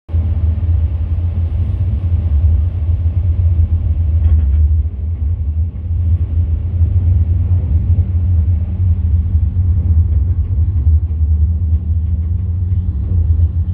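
Tram running along its tracks, heard from on board: a loud, steady low rumble with a faint steady hum above it.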